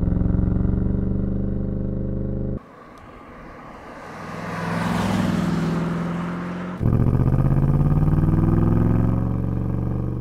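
BMW M850i's 4.4-litre twin-turbo V8 engine running under load, edited from several driving shots. A steady engine note cuts off suddenly about two and a half seconds in. The car swells up and fades away as it passes with tyre noise, then a loud engine note cuts back in, rising in pitch and then levelling off.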